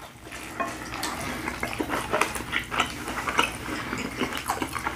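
Close-miked chewing and wet mouth sounds as people eat soft tortilla fajita wraps: many short, irregular smacks and clicks.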